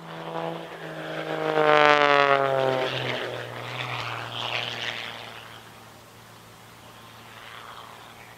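An aircraft flying past, its engine tone dropping in pitch as it goes by, loudest about two seconds in, then fading to a low steady hum as it moves away.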